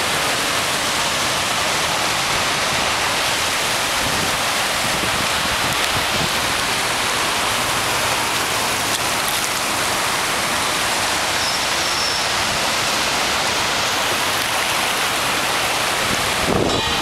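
Steady rushing hiss of water, from heavy rain and floodwater running across a flooded road. A brief low rumble comes near the end.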